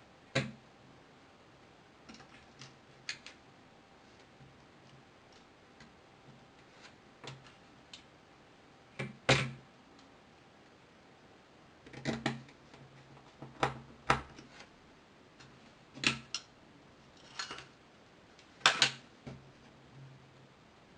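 Small sharp clicks and taps, irregular and scattered, from tools and phone parts being handled and pressed together during a smartphone screen repair.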